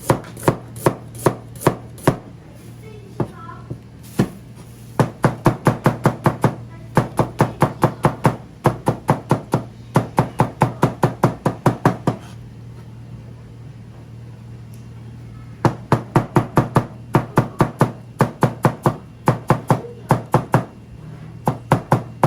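Rapid knife chopping of ingredients on a cutting board: runs of quick, even strikes about four to five a second, with two pauses, over a steady low hum.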